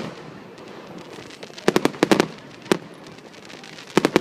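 Fireworks bursting overhead: sharp bangs in quick clusters, one at the start, a rapid run of about five around two seconds in, a single bang after it, and another cluster near the end.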